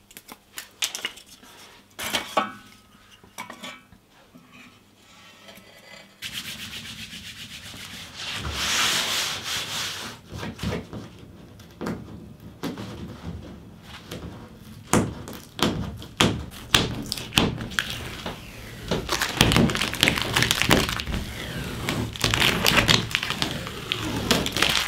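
Kindling crackling softly as it catches in a small steel wood stove, then hands rubbing and handling the cedar strip canoe's fibreglassed hull. Near the end, temporary repair tape is peeled off the hull in a run of crackling rips.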